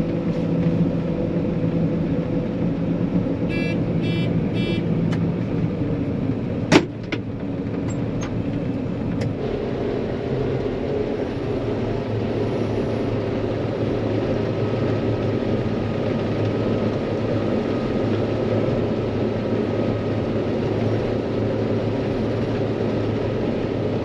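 John Deere 9500 combine running steadily while harvesting wheat. About four seconds in there are three short beeps, and a sharp click comes about seven seconds in. The machine's note shifts about nine seconds in.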